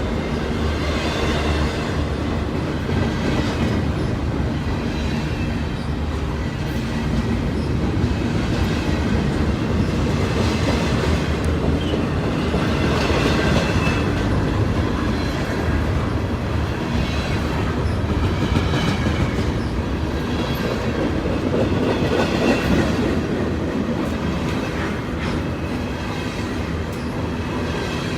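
Freight train cars rolling past, a steady rumble with wheels clattering on the rails.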